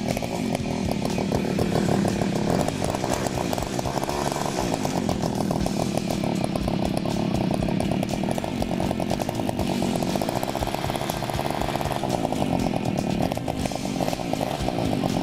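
Go-ped GSR25's 25cc two-stroke engine running just after starting, on its first run in ten years, its speed rising and falling a little.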